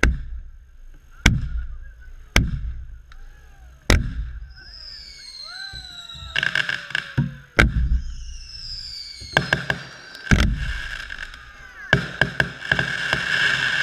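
Aerial fireworks bursting close overhead: six deep booms with rumbling tails, falling whistling tones after the fourth boom, and runs of rapid crackling that grow thickest near the end.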